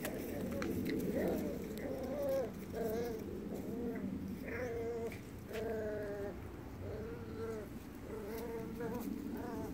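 A nine-week-old puppy whining in a string of short, high whimpers, about one a second, each wavering in pitch.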